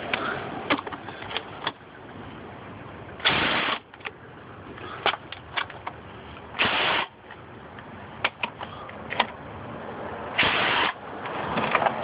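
A cordless power driver spinning out engine-cover bolts in three short bursts, each about half a second long, with sharp metallic clicks from the socket and bolts in between.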